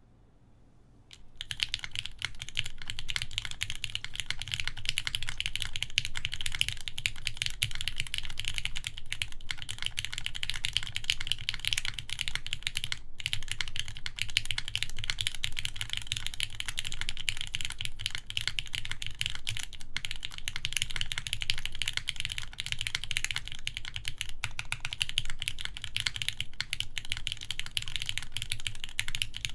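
Fast, continuous typing on an RME Studio Alas mechanical keyboard with lubed Gateron X switches, a full aluminum plate and GMK keycaps: dense keystroke clacks with a low thock beneath. The typing starts about a second and a half in.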